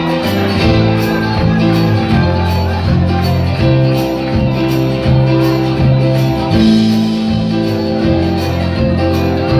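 Live band playing an instrumental passage: strummed acoustic guitars, keyboard, bass and drums in a steady rhythm, heard from within the audience in a club.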